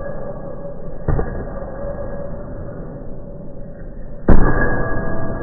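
Heavy hanging punching bag struck twice: a lighter hit about a second in, then a hard kick about four seconds in that lands as the loudest thud, each ringing on in the room.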